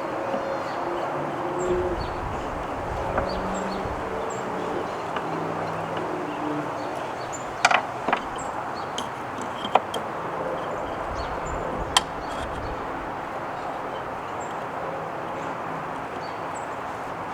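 A few sharp metallic clicks and clinks, a pair close together about eight seconds in, then single ones near ten and twelve seconds, as the parts of a hand plane are fitted back together. Behind them is steady outdoor background noise with faint bird chirps.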